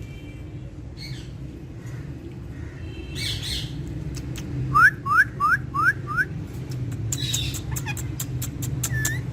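Pet parrot calling: a harsh squawk, then a quick run of five rising whistled chirps about halfway through, followed by more squawks and whistles.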